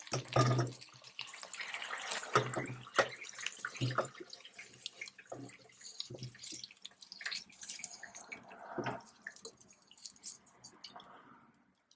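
Water splashing and dripping in a kitchen sink, with many irregular knocks and clatters of things being handled, fading out near the end.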